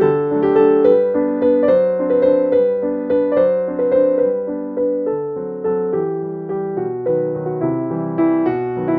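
Background piano music: notes and chords struck at an even, unhurried pace, each fading before the next.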